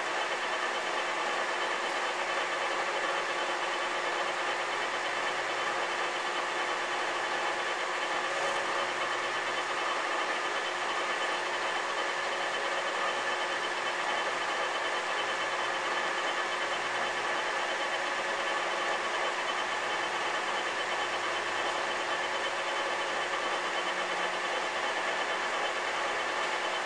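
Bridgeport Romi E-Z Path I CNC lathe running through its program: a steady machine hum with several constant tones, as the spindle turns and the carriage feeds slowly along the ways on a pass.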